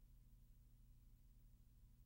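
Near silence: a faint, steady low hum with light hiss.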